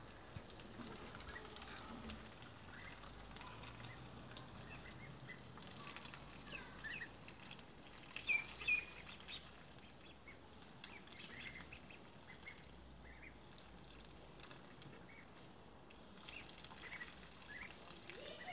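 Ducklings peeping: many short, high, rising chirps scattered throughout, loudest about eight seconds in.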